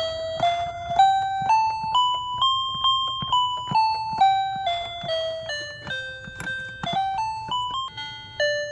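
Toy snail's electronic music mode playing a simple single-note tune in a thin keyboard-like tone. The notes climb step by step, hold, and then step back down, about two a second.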